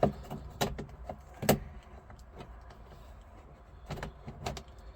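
Glove box liner being handled and shifted in the dash opening: a few sharp clicks and light knocks, the loudest about a second and a half in, with a couple more near the end.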